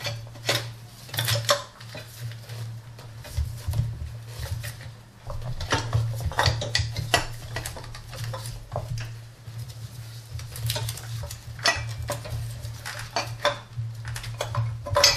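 Metal parts and hand tools clinking and clicking irregularly as they are handled in a car engine bay while a thermostat housing is put back together, over a steady low hum.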